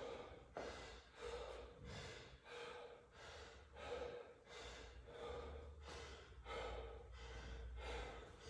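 A man breathing hard and fast, faint, about two breaths a second: an athlete winded from a workout, recovering between sets.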